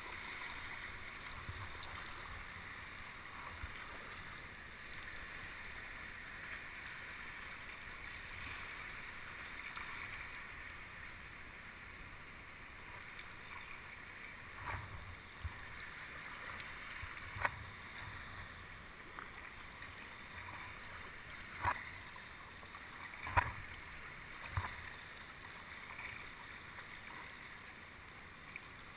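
Steady wash of sea water and swell around a kayak, with five short, sharp taps or splashes in the second half, the loudest about two-thirds of the way through.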